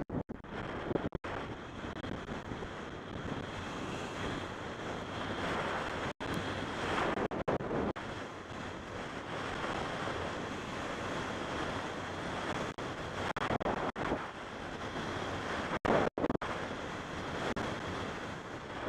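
Wind rushing over an action camera's microphone during a fast ski descent, mixed with the hiss of skis sliding over groomed snow. The noise is steady, with several brief dropouts.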